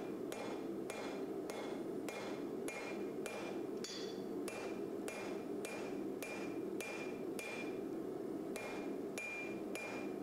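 A hand hammer forging a red-hot bar of forge-welded spring steel on an anvil into a knife blade. The blows fall in an even rhythm of about two a second, each with a short metallic ring, over a steady low rushing noise.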